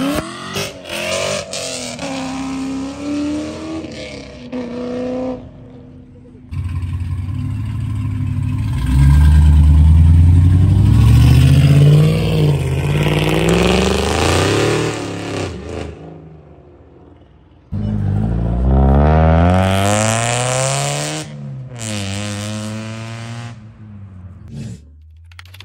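Muscle cars accelerating hard past one after another, engines revving up in rising sweeps. The loudest pull, from a Dodge Charger, comes in the middle, and another car starts revving suddenly about eighteen seconds in.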